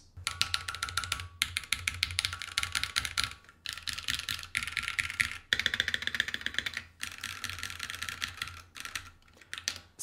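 Fast typing on a Keychron Q1 aluminium-case mechanical keyboard fitted with Alpaca switches, in several bursts with short pauses between them. Under the keystrokes a metallic ping rings: this comes from the stock hollow aluminium case with no foam inside, which the owner finds too pingy.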